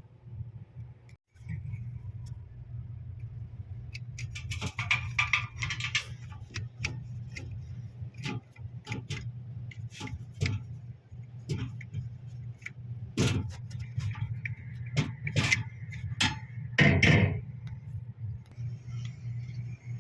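Scattered clicks and knocks of parts being handled as a cleaned, oiled refrigerator fan motor is fitted back in place, over a steady low hum.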